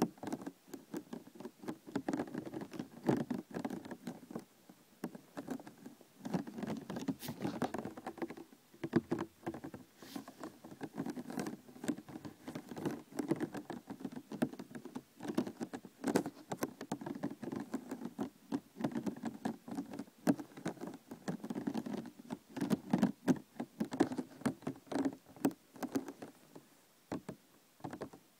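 Plastic container being tapped and handled: a dense run of quick clicks and taps that comes in clusters with brief pauses.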